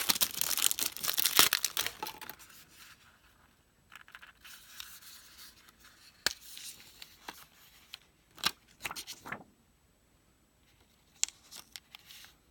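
Product packaging being torn open and crinkled, loud and dense for about two seconds, followed by scattered quieter rustles and small clicks as the items are handled.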